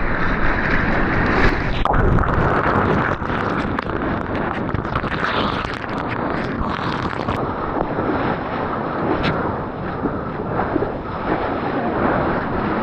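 Ocean water rushing and splashing close to an action camera, with wind buffeting its microphone: a loud, steady noise with a few sharp splashes.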